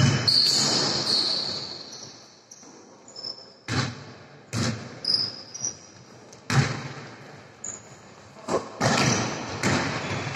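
A basketball bouncing on a hard indoor court in irregular thuds that echo in the hall, mixed with short high squeaks of sneakers on the floor.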